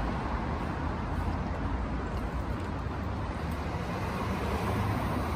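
City street traffic noise: a steady rumble and hiss of cars driving past.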